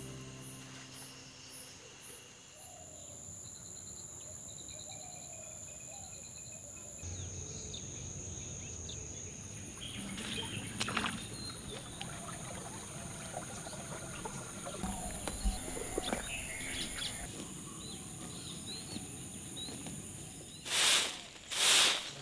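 Rural ambience of insects trilling steadily and scattered bird calls. Near the end, a stiff stick broom makes two loud sweeping strokes across sandy ground.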